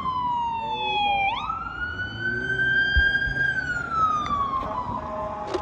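Emergency vehicle siren on a slow wail. Its pitch falls, jumps back up about a second and a half in, climbs and holds, then falls again near the end.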